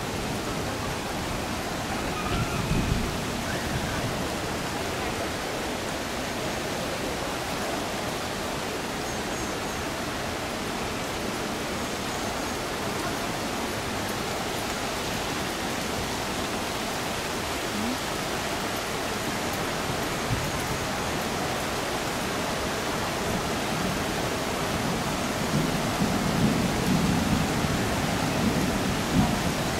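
Heavy rain pouring down in a steady hiss, with a few brief low rumbles a few seconds in and again near the end.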